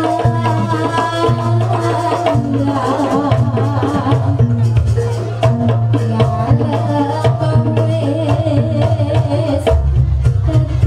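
Javanese jaranan ensemble music: hand drums play a busy rhythm under a sustained melody line and a deep, steady low tone. The low tone drops to a deeper pitch near the end.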